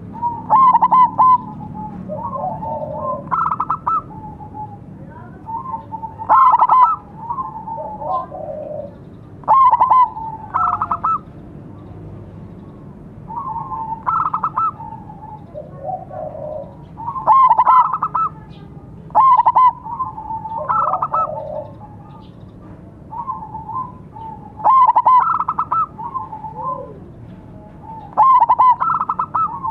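Zebra doves (perkutut) cooing: a silver-morph zebra dove repeats its quick, stuttering cooing phrase every couple of seconds, and a second dove answers in between with lower notes.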